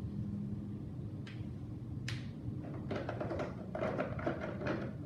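Felt-tip marker strokes scratching and squeaking on paper. Two short rising swipes come in the first half, then a quick run of scratchy strokes and rustling over the last couple of seconds, over a steady low hum.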